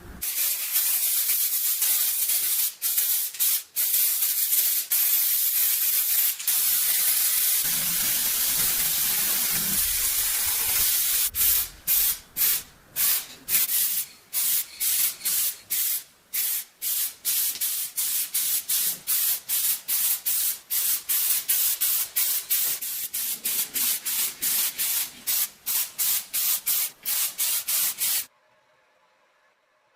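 Spray painting: a steady hiss of spray for about eleven seconds, then short spurts about two to three a second, cutting off near the end.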